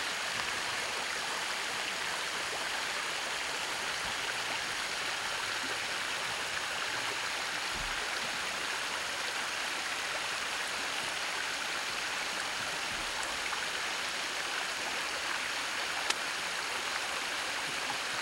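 Shallow creek rushing steadily over rocks in a small riffle. Near the end, a single sharp slap: a hand slapping a mosquito.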